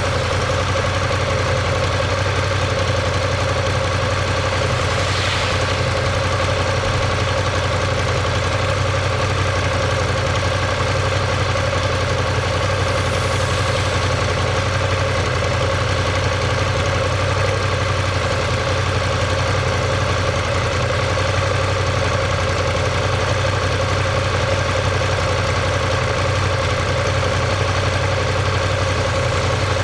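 Ducati Monster 1200S's L-twin engine and exhaust running at a steady, unchanging speed, with a deep even beat.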